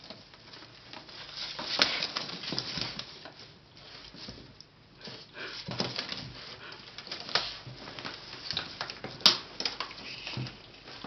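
English Shepherd puppy chewing on a wicker basket: irregular crackling and snapping of the wicker, with one sharp snap about nine seconds in.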